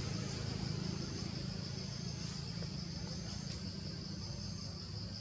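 Steady high-pitched drone of a forest insect chorus (cicadas or crickets), over a low steady rumble.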